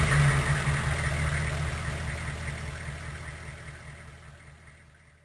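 Big truck engine idling steadily with a low, even rumble, fading away over about five seconds until it is barely audible.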